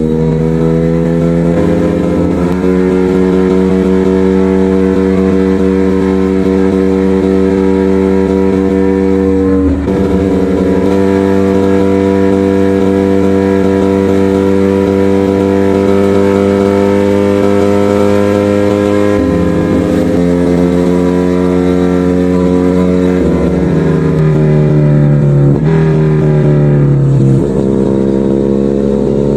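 Motorcycle engine and exhaust running under way at steady revs. The pitch drops and climbs back at gear changes about ten seconds in and again near the end.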